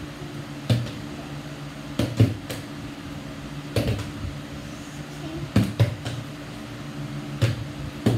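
Partly filled plastic water bottles flipped and landing on a ping-pong table: a string of sharp knocks, some coming two or three in quick succession, over a steady low hum.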